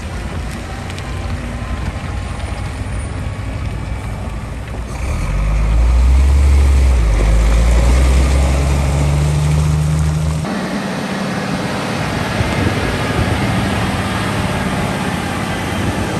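Heavy diesel engine running steadily. It grows louder and deeper about five seconds in, then drops back abruptly about ten seconds in.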